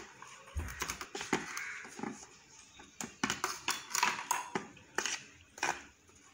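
Wire whisk beating egg whites in a stainless steel bowl as powdered sugar is added, the wires clinking and tapping irregularly against the metal.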